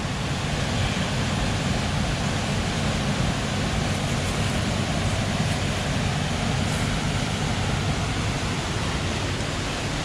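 Steady rushing noise of a waterfall and river flowing.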